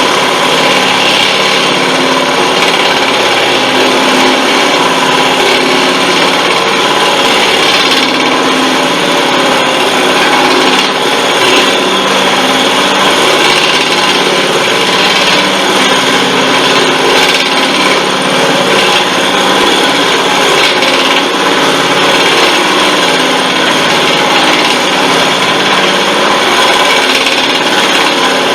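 Vevor 1440 wood lathe running at its slowest speed while a 5/8-inch twist drill held in the tailstock bores into spinning construction fir. A steady motor hum runs under the continuous rasping of the bit cutting the wood.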